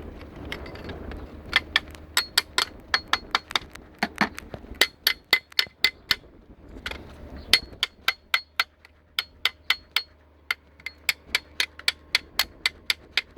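Rapid, irregular sharp metallic clicks and taps, a few a second, some with a short high ring, on a Johnson V4 115 hp outboard that does not crank.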